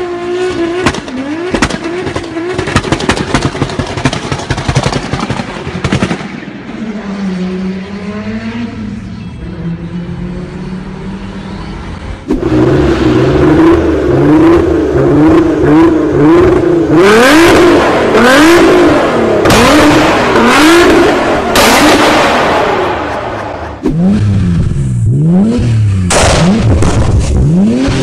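Tuned car exhausts revved hard in a string of short clips, crackling and popping on the throttle: a Toyota Supra first, then a Nissan GT-R revved again and again with several loud backfire bangs, and another car revving with pops near the end.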